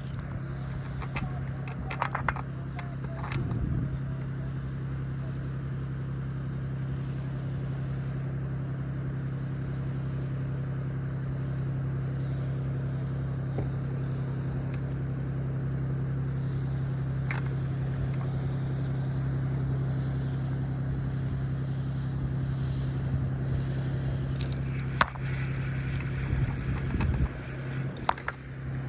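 A steady low mechanical hum runs throughout, with a few short clicks and knocks about two to three seconds in and again near the end.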